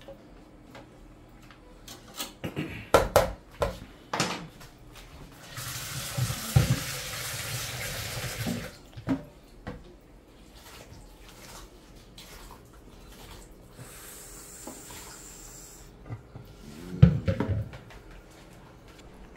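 Water running and splashing into a bowl for a few seconds, with knocks and clatter of the bowl being handled before and after, as grated coconut is squeezed in water to make coconut milk.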